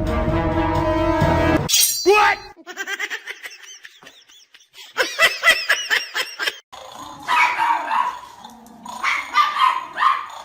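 Background music cuts off about two seconds in. It is followed by a dog and a squeaky toy: short high squeaks in quick runs, then barking.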